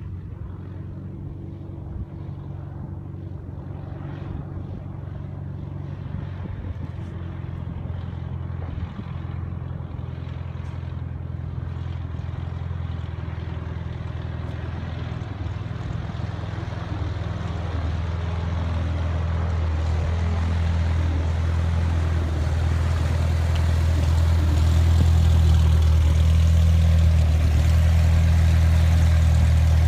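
Light single-engine propeller plane's piston engine running at taxi power. It grows steadily louder as the plane taxis up close, then holds steady near the end.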